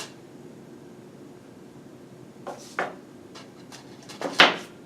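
Snips clipping a small piece of easy solder: a few light metal clicks in the second half, then a sharper snip near the end.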